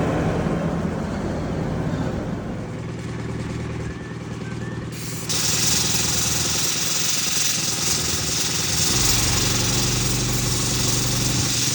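An engine idling steadily. About five seconds in, a steady hiss starts suddenly and runs on over it.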